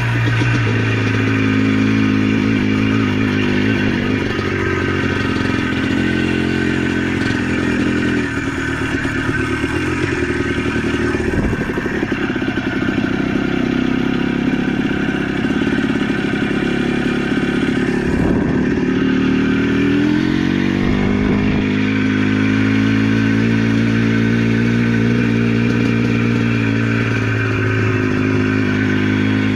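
ATV engine running under way, its pitch shifting with the throttle, dropping briefly a couple of times and climbing again about two-thirds of the way in, with some clatter over rough ground.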